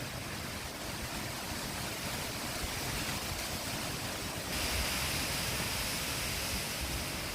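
Wind blowing: a steady rushing hiss over an uneven low rumble, growing louder and brighter about four and a half seconds in.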